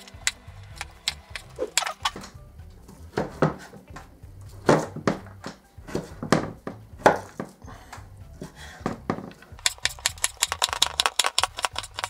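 Kitchen knife chopping raw lamb fat into small cubes on a wooden cutting board: irregular knocks of the blade on the board, then a fast run of rapid chops near the end, with background music.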